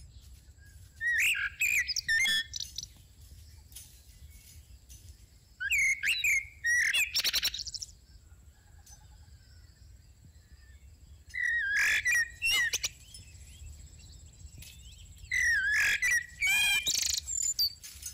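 A songbird singing a short phrase of quick, gliding chirps and whistles four times, about every five seconds.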